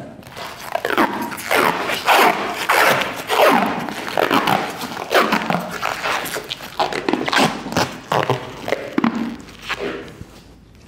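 White plastic protective wrap being peeled and pulled off a new car's roof, crinkling and rasping in a quick run of repeated pulls.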